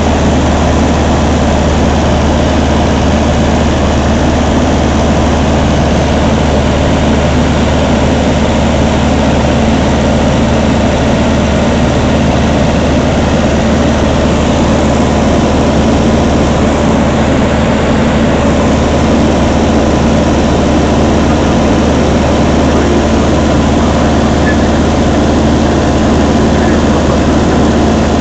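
Luscombe light airplane's engine and propeller droning steadily in flight, heard from inside the cabin. The sound is loud and even, with no change in engine note.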